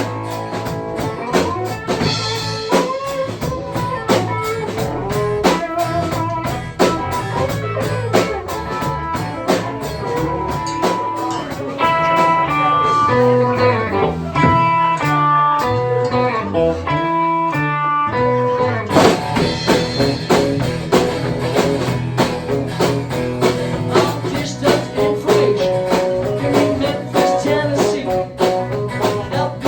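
A band playing an instrumental stretch, with a guitar leading over a steady beat. About twelve seconds in the low end drops back and a run of single picked guitar notes stands out. The full band comes back in about seven seconds later.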